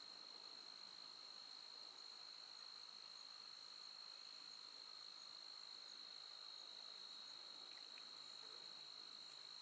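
Crickets trilling in a faint, steady, high-pitched chorus, with a fainter, higher chirp repeating about twice a second.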